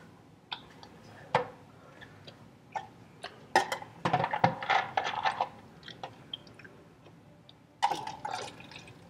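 Plastic Coca-Cola bottle being handled and drunk from, with liquid sloshing inside. Scattered clicks and knocks come from the plastic, and there are two busier stretches of handling and liquid noise: one in the middle and one near the end, as the last of the Coke is finished.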